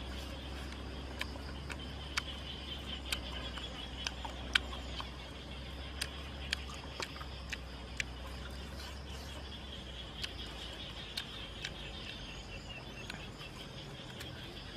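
Eating sounds: sharp, irregular clicks and smacks of biting and chewing grilled rabbit meat, most of them in the first half and fewer later, over a steady high chirring in the background.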